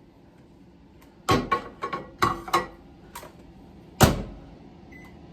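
Microwave oven being loaded: a run of knocks and clicks as the door is opened and the bowl of butter goes in, then the door shut with a bang about four seconds in, and a single keypad beep near the end.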